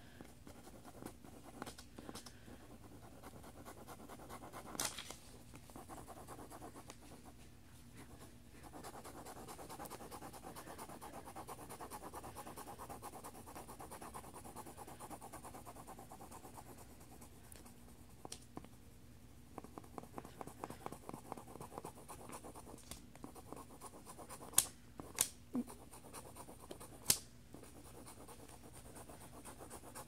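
Mechanical pencil lead scratching on lined paper in rapid back-and-forth shading strokes. A few sharp clicks stand out, three of them close together near the end.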